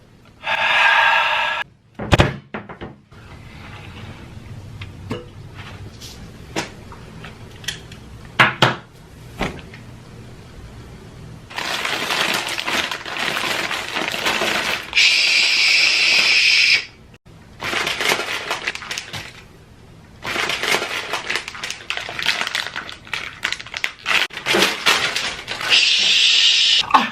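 Repeated crashing and breaking noises, with many sharp knocks, broken up by three short, shrill high-pitched outbursts.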